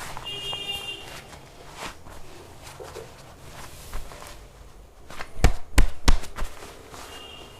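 Hands working on a body in a massage: soft pats and rubbing, then a quick run of loud slaps about five and a half seconds in.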